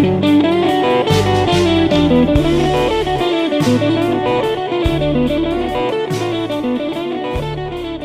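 Background music: an instrumental track led by guitar over a bass line, with occasional percussive hits.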